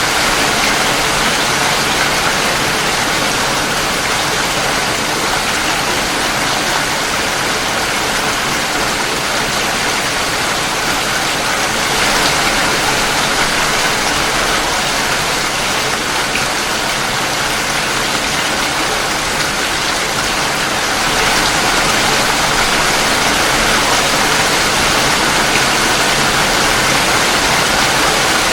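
Steady heavy rain falling and pattering on surfaces, an even rushing hiss that swells slightly about two-thirds of the way through.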